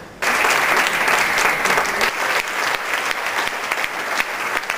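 Audience applauding, many hands clapping steadily; the applause cuts in suddenly right at the start.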